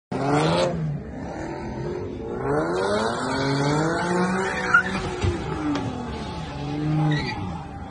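Car engine revving up and down as the car spins its tyres in a drift, with tyre squeal; it starts abruptly.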